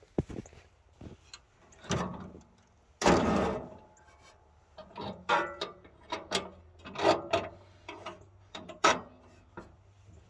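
Boots crunching and stamping through deep snow in a string of uneven steps, with a sharp knock near the start.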